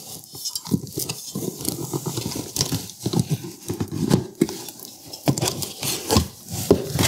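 Irregular rustling and light knocks and taps of packaging being handled as a boxed enameled cast iron Dutch oven is unpacked.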